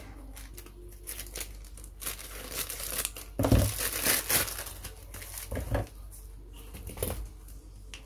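Crinkling, rustling and tearing of a brown mailer package being opened by hand, in irregular bursts, with a dull knock about three and a half seconds in and another near six seconds.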